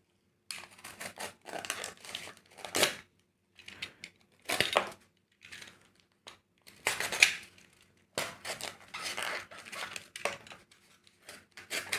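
18 mm snap-off utility knife slicing through cardboard in a series of strokes, each a rasping scrape lasting about half a second to a second with short pauses between.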